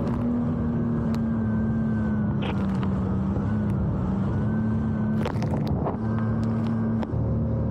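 Jet ski engine running at a steady pitch, with a faint wavering whine above it and a few short, sharp slaps as the craft rides rough chop, about two and a half seconds in and again near five and a half seconds.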